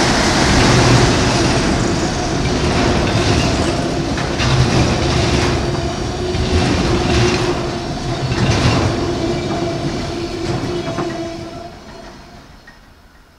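Autorack freight cars of a Canadian National train rolling past: a steady rumble with the clickety-clack of wheels over rail joints and a steady ringing tone over it. The sound fades away over the last couple of seconds.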